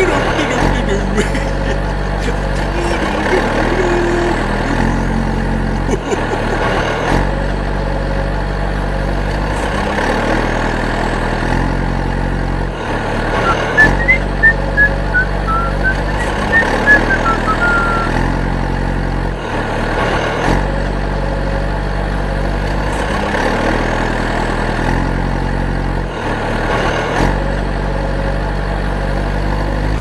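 Heavy diesel truck or tractor engine running, a looped engine sound effect whose pitch and level step in a pattern that repeats every six or seven seconds. A few short, high chirps come about halfway through.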